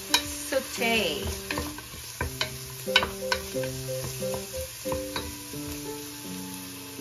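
Wooden spatula stirring diced onions sautéing in a stainless steel pot, with irregular sharp knocks and scrapes against the pot over a soft sizzle. Background music with held notes plays underneath.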